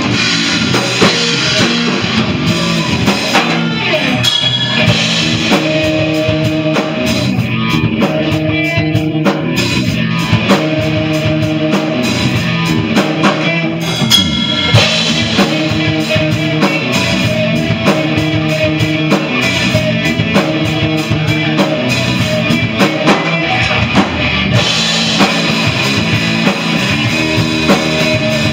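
Live rock band playing: electric guitars and a drum kit, a repeating riff over a steady beat.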